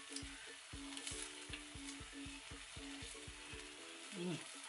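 Hot cooking oil sizzling steadily as panikeke (Samoan fried dough) deep-fry, with quiet background music with a steady beat over it.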